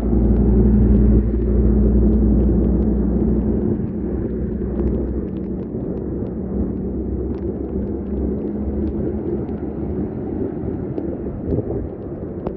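Cars and a motorcycle driving through deep floodwater on a street in heavy rain, tyres throwing up spray over a steady wash of rain and water. It is loudest in the first few seconds, as a vehicle passes close with a low engine rumble, then settles to a more even hiss and rumble of passing traffic.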